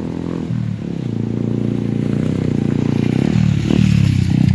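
Motorcycle engines running and getting louder as the bikes come up close, with a deeper vehicle engine under them.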